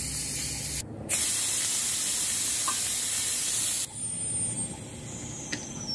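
Steam hissing steadily out of a pressure cooker as its pressure is let off, stopping abruptly about four seconds in.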